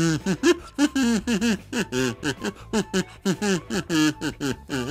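A man wordlessly vocalising a tune through a small toy held to his lips, kazoo-style, as a quick unbroken run of short notes.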